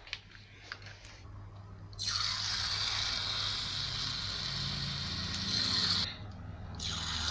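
Rice-flour murukku dough sizzling steadily as it is pressed into hot oil in a wok. The sizzle starts about two seconds in, drops away briefly near the end, then returns.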